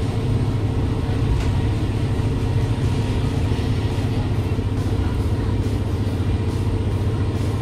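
Diesel railcar running, a steady low rumble with a faint even hum.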